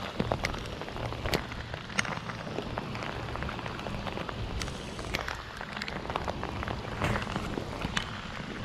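Steady rain falling on a pond's surface, with scattered sharp ticks throughout.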